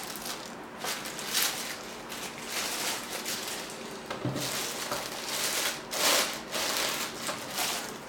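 Irregular rustling and crinkling of packaging as a power supply and its cables are packed back into their box, with a soft thump about four seconds in.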